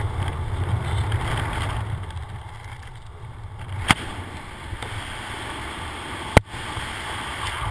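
Wind rushing over the camera's microphone during a descent under an open parachute canopy: a low, fluctuating rumble that eases a little in the middle. Two sharp clicks cut through it, one about four seconds in and one just past six seconds.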